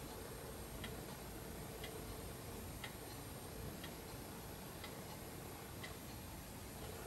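Clock ticking faintly and evenly, about once a second, over a faint steady room hum.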